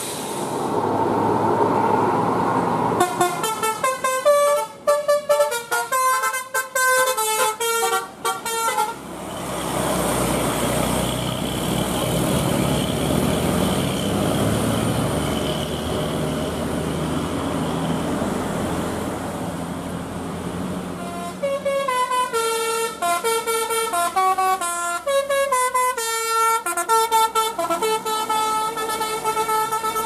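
Bus telolet musical air horn of the Basuri type playing a stepped multi-note tune, twice: from about three seconds in for some six seconds, then again from about twenty-one seconds in. Between the two tunes the bus engine and road noise run steadily.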